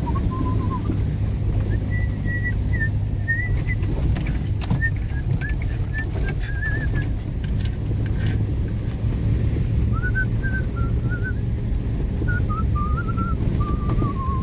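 A car rolls along a gravel dirt road, heard from inside the cabin: a steady low engine and tyre rumble, with a few sharp ticks from about four to eight seconds in. Over it, a thin wavering whistle comes and goes.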